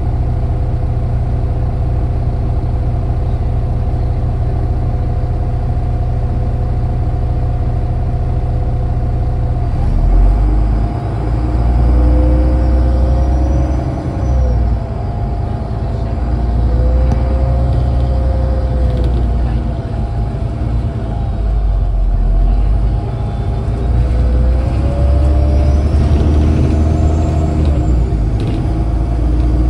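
A MAZ-203 city bus's diesel engine heard from inside the cabin, idling steadily while the bus stands still. About ten seconds in, the bus pulls away: the low rumble grows and the engine note rises and drops several times as it accelerates through the gears.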